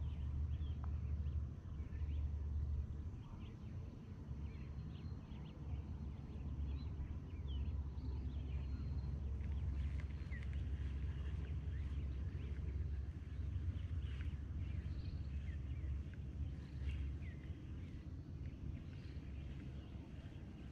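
Scattered short bird chirps and whistles over a steady low rumble.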